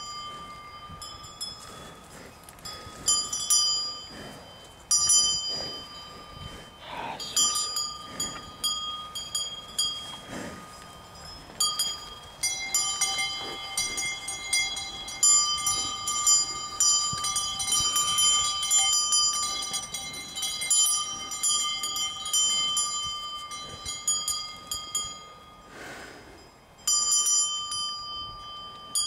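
Cowbells on the necks of grazing cattle clanking irregularly as the cows move their heads, several bells of different pitch ringing over one another in uneven clusters of strikes. A lower-pitched bell joins for a few seconds near the middle.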